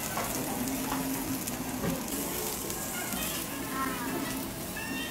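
Blocks of Matsusaka sirloin steak sizzling in oil on a flat hot griddle, a steady hiss with many small crackles of spattering fat.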